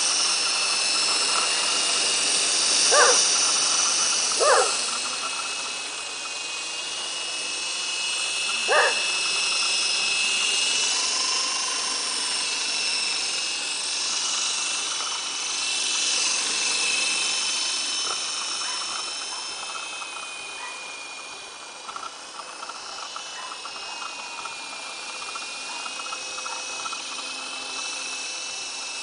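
Esky Big Lama electric coaxial RC helicopter flying, its motors and rotors making a steady high whine that wavers in pitch and grows fainter past the middle as it flies off. A dog barks three times, about 3, 4.5 and 9 seconds in, the loudest moments.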